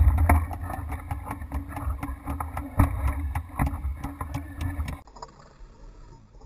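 Wind buffeting the microphone of a GoPro hanging from a kite line: a low rumble with frequent sharp clicks. About five seconds in it cuts off suddenly to a much quieter hush.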